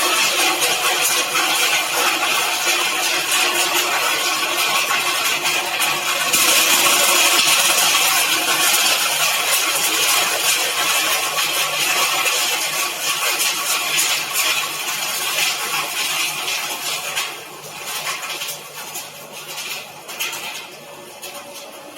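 Refrigerator foam shredder running: a steady motor hum under dense crackling and rattling as material is torn through the blades. The noise thins out and becomes intermittent near the end.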